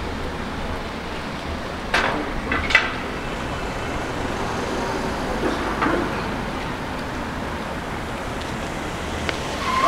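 Street traffic noise: a steady hum of vehicles, with two short sharp knocks about two seconds in.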